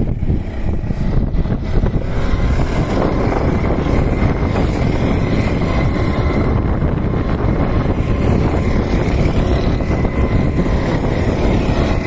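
Several go-kart engines running together as a pack of karts races past, their buzz filling in from about two seconds in, over wind rumbling on the microphone.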